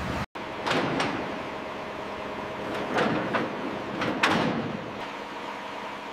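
Steady machinery hum in a loading yard with several short sliding, knocking strokes of cargo handling, the strongest about three and four seconds in.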